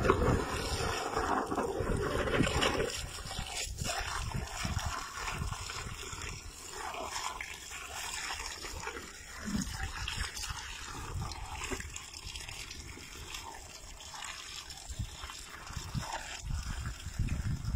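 Water from a garden hose trickling and splashing onto an elephant's trunk tip as the elephant drinks from it, with irregular low rumbles. The splashing is heaviest in the first few seconds.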